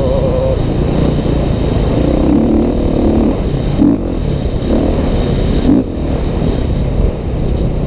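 Dirt bike engine running under way on a rough gravel trail, its note rising and falling with the throttle, with a few brief jolts in level.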